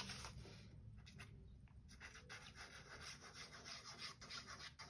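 Faint scratchy rubbing of a liquid-glue bottle's tip drawn along the edge of black cardstock, with many small ticks, after a short click at the start.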